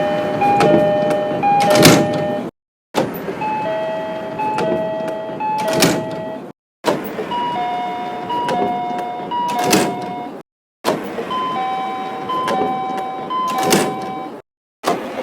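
E233 series 3000-subseries commuter train door chime: a two-note high-low chime played three times, ending with a loud thump as the doors shut, over a background of noise. This plays as about four short clips with brief silences between them, the chime pitched higher in each clip.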